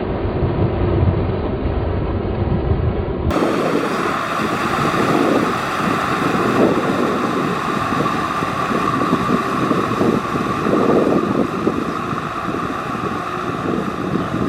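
Tractor engine running under load while ploughing through deep mud and water. The sound changes abruptly about three seconds in, where one clip cuts to another.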